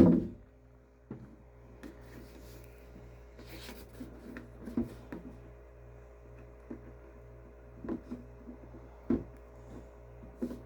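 Faint, scattered clicks and knocks of small parts and a plastic fuel tank being handled as a rubber gasket is worked onto a threaded fuel pickup pipe, over a steady low background hum.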